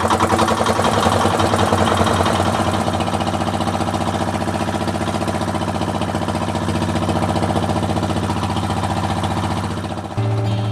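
Inboard engine of a small wooden pompong fishing boat running steadily with a fast, even chugging as the boat moves out across the river. Near the end it dips and background music comes in.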